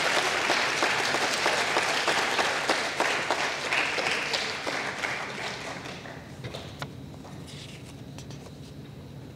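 Audience applause, dense at first, fading out about six seconds in to a few scattered claps.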